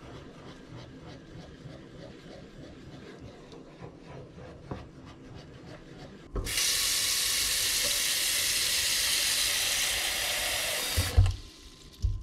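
Kitchen faucet running hard into a stainless-steel pot at the sink: a steady loud rush of water that starts suddenly about six seconds in and is shut off abruptly near the end, followed by a couple of heavy thumps. Before it, only faint scraping from a spoon stirring sauce in a pan.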